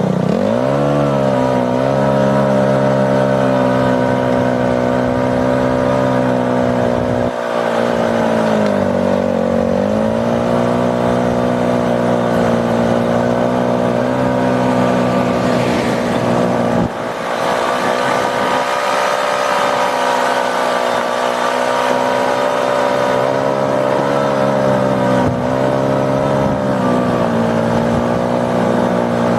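ATV engine running under way, its pitch falling and picking up again as the throttle eases and opens, about a second in and again around nine seconds in.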